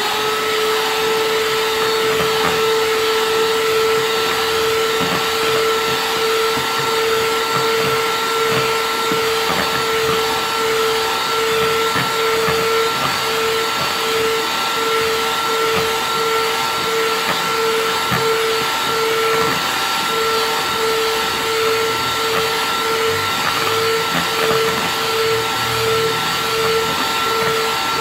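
Electric hand mixer running steadily, its beaters whipping heavy whipping cream in a plastic bowl as the cream thickens: a steady motor whine over a hiss. The whine rises slightly just as it begins and takes on a light pulse about halfway through.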